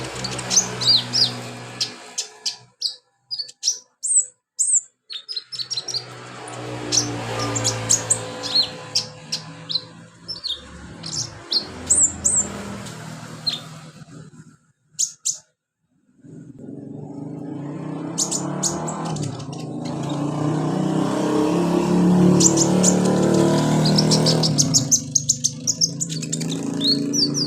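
Sunbird (the 'kolibri/conin' of Indonesian bird keepers) singing in rapid bursts of short, high-pitched chirps and quick trills, with a low steady hum underneath.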